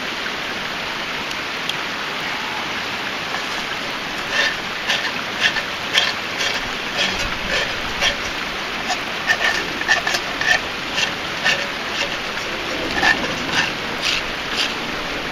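Knife blade scraping bark off green sassafras and tulip poplar twigs in repeated short strokes, starting about four seconds in, over the steady rush of a creek.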